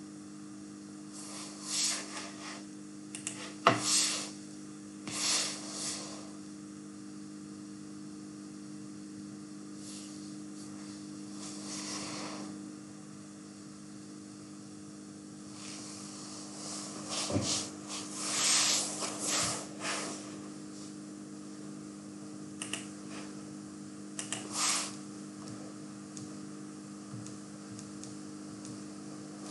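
Steady low electrical hum on the microphone, with short breaths close to it every few seconds and a couple of small clicks.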